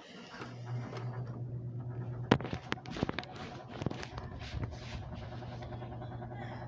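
Vornado fan's motor humming steadily, the hum beginning about half a second in. Over it come clicks and knocks from handling, the sharpest a couple of seconds in.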